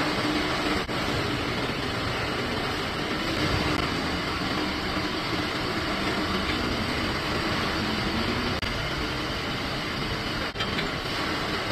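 Steady machine noise from a running plastic injection moulding machine in a factory, an even hum and rush with no rhythm, broken by a few brief gaps.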